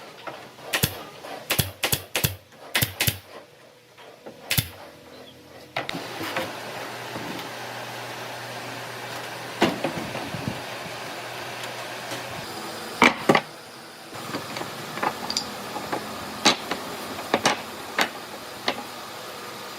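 A quick run of sharp knocks and taps, then from about six seconds a steady low hum with scattered knocks through it, a loud double knock about two-thirds of the way in.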